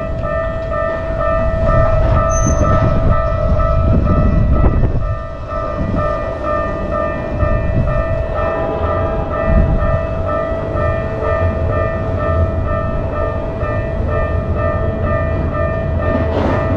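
Japanese railroad crossing alarm ringing in an even, repeating pattern, with a second alarm tone joining about halfway, over the low rumble of a passing train.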